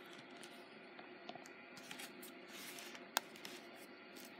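Faint handling noise of hands moving over a tabletop, with light scattered clicks and one sharp click about three seconds in.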